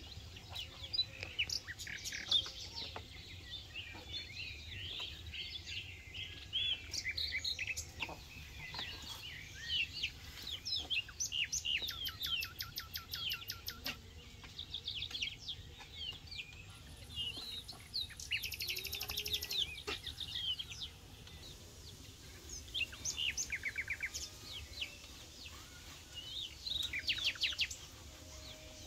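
Small birds chirping and singing, with a few fast trills, over a few faint knocks.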